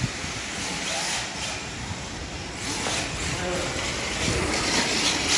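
Two radio-controlled drift cars sliding on a smooth indoor track, their hard tyres hissing as they scrub sideways, in surges as the cars swing through the corners, with voices in the hall behind.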